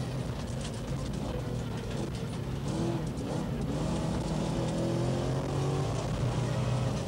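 Rover Vitesse rally car's V8 engine heard from inside the cabin, driven hard on a loose-surface stage, with the revs rising around the middle. Scattered sharp ticks of gravel hitting the car.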